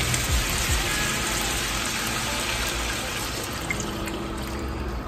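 Water poured from a glass measuring cup into a hot skillet of browned ground beef and tomatoes, over the steady sizzle of the pan.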